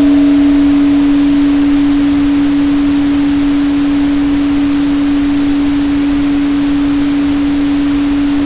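A steady pure 285 Hz tone held over a constant bed of pink noise. A few higher ringing overtones from a struck tone just before fade away within the first second.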